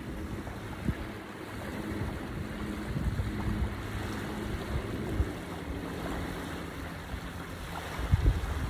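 Small waves washing on a sandy shore, with wind buffeting the microphone in gusts, the strongest near the end.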